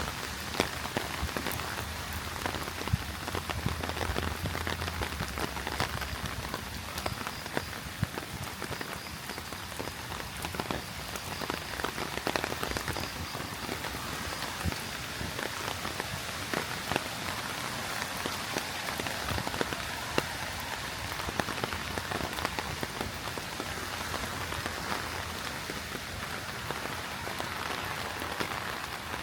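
Heavy rain falling steadily, with many sharp individual drop hits close by.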